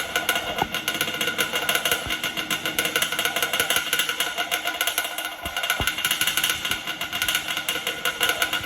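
Yamaha Banshee's two-stroke twin-cylinder engine running steadily, with a fast, even pulse.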